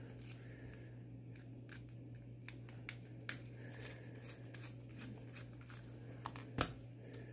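Faint clicks and scrapes of a small precision screwdriver turning screws out of an aluminium dongle case, with one sharper click near the end. A steady low hum runs underneath.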